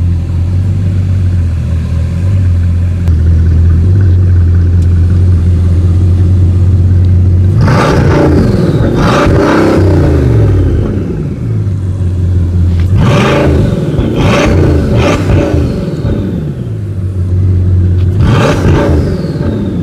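Bugatti Chiron's quad-turbocharged W16 engine idling steadily, then revved in three bursts of blips, about 8, 13 and 18 seconds in, settling back to idle between them.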